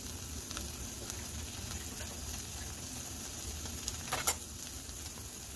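Scrambled eggs with vegetables sizzling in a frying pan, left to cook undisturbed: a steady crackling hiss, with a couple of sharper clicks about four seconds in.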